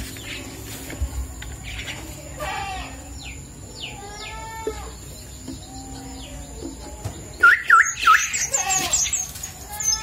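Twelve-day-old starling chicks calling: scattered chirps and short wavering calls, turning into a loud run of rapid high chirps about seven seconds in.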